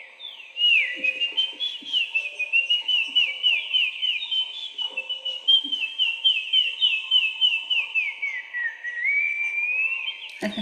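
A person whistling a continuous high warbling melody, a run of quick downward-slurring notes that ends in a slower low swoop and rise near the end.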